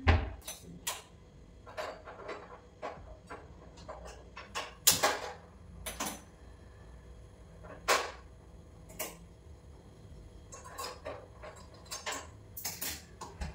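Kitchen utensils and containers being handled at a gas stove while tea is made: an irregular clatter of knocks and clinks, with louder knocks about five and eight seconds in.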